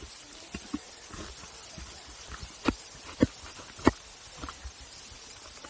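Several sharp taps and knocks close to the microphone at uneven intervals, the loudest three falling in the middle, over a faint outdoor background.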